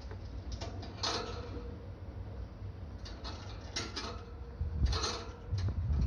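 Quaker parrot chewing and beaking a hanging toy of small brass bells: irregular metallic clinks and jingles in little clusters, the loudest about a second in and around four to five seconds in.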